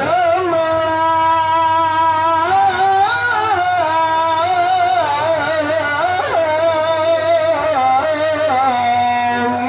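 A male qari reciting the Quran in the melodic tilawah style, amplified through a microphone, holding long high notes that break into ornamented, wavering turns and settle lower near the end.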